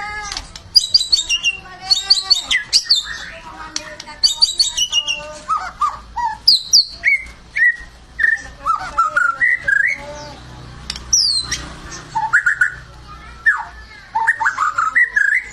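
White-rumped shama (murai batu) singing a fast, varied song: quick runs of falling chirps early on, then clear whistled notes and trills with short gaps between phrases.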